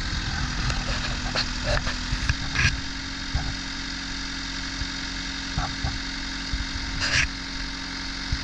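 1997 JCB 3CX backhoe loader's four-cylinder diesel engine running steadily near idle. A few short clanks come about one and a half to two and a half seconds in and again near the end.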